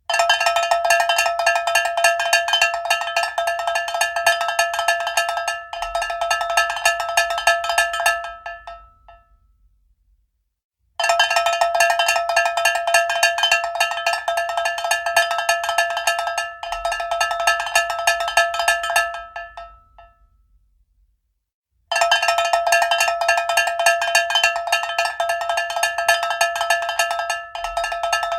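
Cowbell struck rapidly and repeatedly, loud, in runs of about eight seconds. Each run tails off into a second or two of silence before the next starts, three runs in all.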